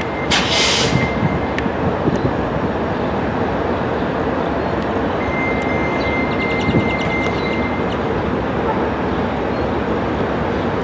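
A train passing close by, with a steady rumble and rush of wheels on rail. A thin, high squeal sounds near the start and again in the middle, and a short hiss comes just after the start.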